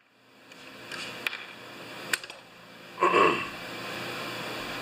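Handling sounds of a chainsaw body being worked on at a bench: two light clicks, then a louder short clatter about three seconds in as the saw body is moved and turned over on the towel.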